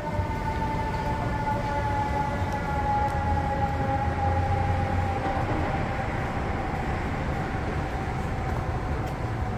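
Chicago 'L' train passing, its whine of several tones sliding slowly down in pitch over a steady low rumble.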